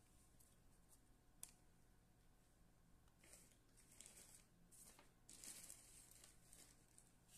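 Near silence: quiet room tone with faint rustling and a single light click about one and a half seconds in.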